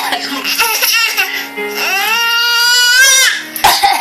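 A young child letting out one long, high-pitched squeal that rises and then holds, about halfway through, over music with steady held notes.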